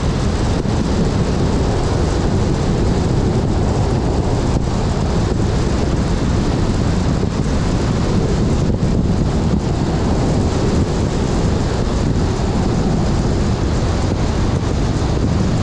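Steady road noise from a car driving along, tyre rumble mixed with wind rushing over the microphone.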